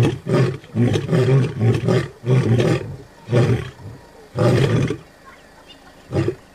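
Male lion roaring: a run of deep grunts, about two a second at first, then slowing and spacing out, the last few more than a second apart and fading, as the roaring bout trails off.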